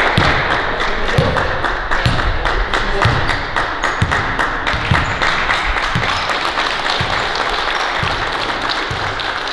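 Applause-like crowd noise with a low thump about once a second.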